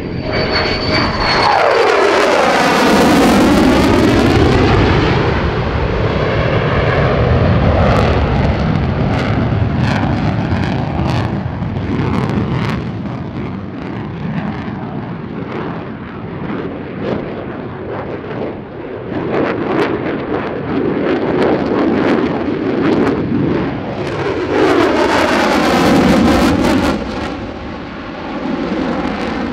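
Lockheed Martin F-35A Lightning II's Pratt & Whitney F135 afterburning turbofan loud through a display pass, with a falling sweep of pitch as the jet passes about two seconds in and again near the end. The afterburner is lit near the end.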